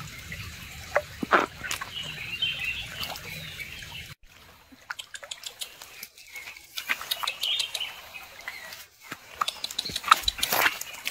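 A ferret scrambling over wet stones and mud beside a shallow trickling creek: a steady water hiss with scattered splashes, pattering and rustling of its movements. The sound breaks off briefly about four seconds in.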